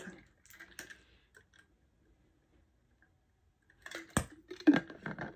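A person drinking water from an insulated tumbler: a few faint clicks at first, a quiet stretch, then swallowing gulps and sharp clicks about four seconds in.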